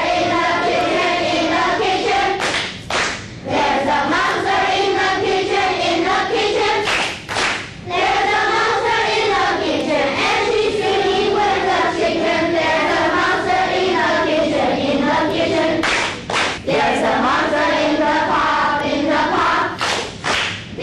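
A group of children singing together in chorus, phrase after phrase, with short breaks. There are sharp claps now and then, some in pairs.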